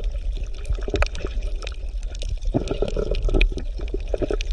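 Underwater ambience: water bubbling and gurgling, with many small crackling clicks over a low steady rumble.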